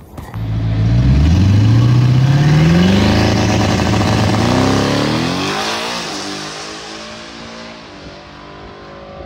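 Twin-turbocharged 5.0 Coyote V8 of a 2017 Mustang launching from a drag-strip start and pulling hard through the gears. Its pitch climbs and drops back at each automatic upshift, then the sound fades as the car runs away down the track.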